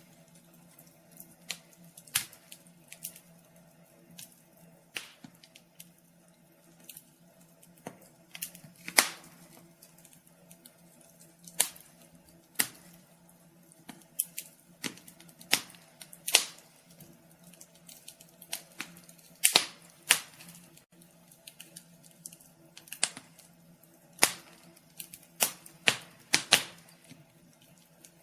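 Wood fire crackling in a fireplace: irregular sharp pops and snaps, sometimes a few close together, over a faint steady low hum.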